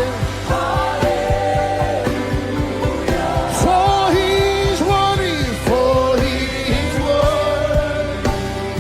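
Live gospel worship music: voices singing long held notes with vibrato over a band with a steady drum beat.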